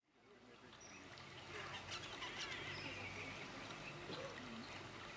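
Faint outdoor ambience with a few soft, scattered bird chirps, fading in over the first second or so.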